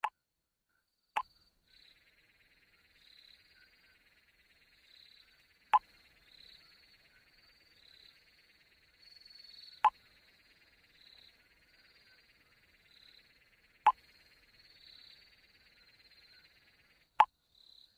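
Chat-message pop sound effect, a short sharp bloop repeated about six times several seconds apart, each marking an incoming text message. A faint steady high-pitched hiss sits underneath.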